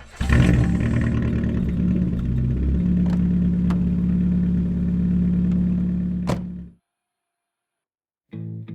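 A car engine running, its speed changing over the first few seconds and then held steady, before it cuts off abruptly.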